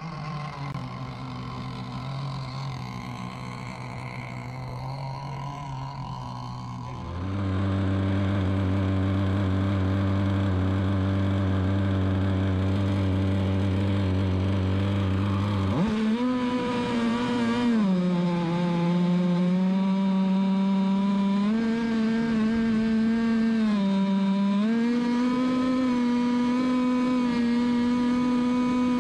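Offshore racing powerboat's engines running with a steady low drone that gets louder about seven seconds in. Around sixteen seconds they rev sharply up to a higher-pitched run, which dips in pitch twice before settling.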